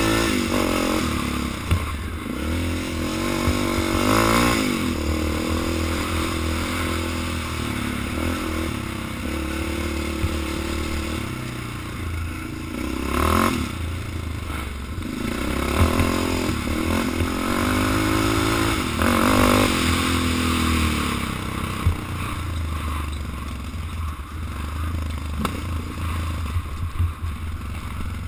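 Sport ATV engine revving up and easing off several times as the quad is ridden over a rough dirt trail, with clattering and scraping from the machine over bumps and through brush.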